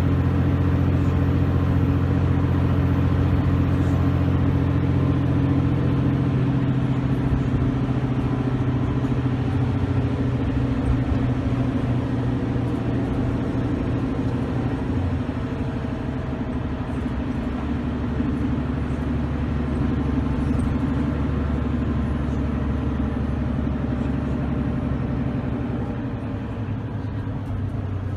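Diesel bus engine running steadily under way, with a faint high turbo whine above the engine note that drifts down in pitch at times.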